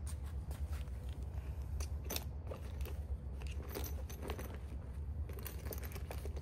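Handling of a pouch's strap buckle and fittings on a fabric solar panel blanket: a run of small, irregular clicks and rattles. A steady low rumble runs underneath.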